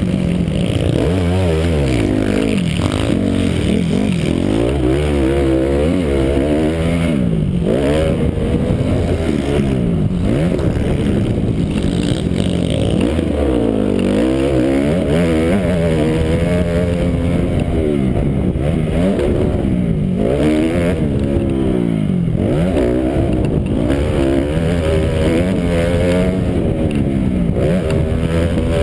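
Motocross bike engine at race pace, its pitch rising and falling over and over as the throttle opens and closes through the turns and straights, heard from the rider's helmet camera.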